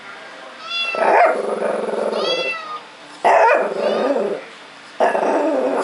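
A cat meowing three times from a cat video on a laptop, with a Shih Tzu puppy barking and growling back at it in loud, sudden bursts between the meows.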